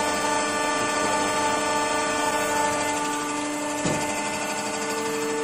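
Cylinder-head resurfacing machine running with a steady whine from its motor and hydraulic pump, its rotating cutter head working across an engine cylinder head. There is a brief click about four seconds in.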